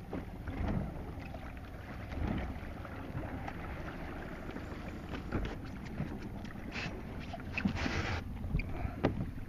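Small Suzuki outboard motor running low under wind buffeting the microphone and water rushing along a boat's hull, with a few louder rushes around seven to eight seconds in.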